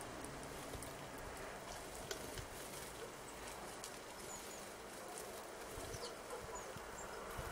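Faint, high-pitched call notes of tits, a few short chirps in the second half, over a steady outdoor hiss.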